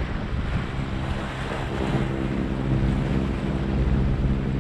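Sailboat's engine running steadily as the boat motors along, with a low even hum under the rush of wind on the microphone and water along the hull.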